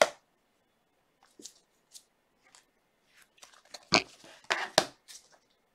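Trading cards in hard plastic holders being handled: sharp plastic clicks and taps, one at the start and a cluster about four seconds in, with faint light ticks between.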